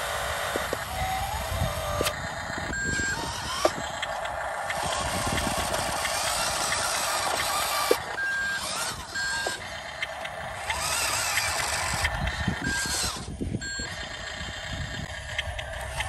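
Radio-controlled dump truck driving over dirt: its electric drive motor whines up and down in pitch as it speeds up and slows, with several short electronic beeps.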